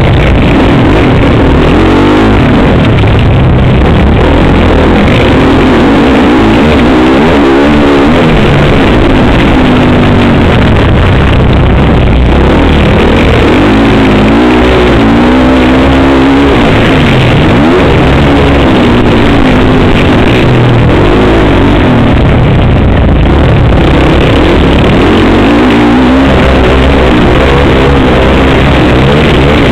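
Motocross dirt bike engine revving hard up and down through the gears at racing speed, heard loud and clipped from on board.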